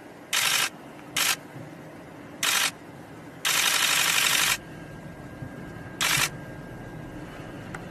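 Camera shutter firing in five quick bursts of continuous shooting. The longest burst, a little past halfway, is about a second of rapid clicks, over a steady low hum.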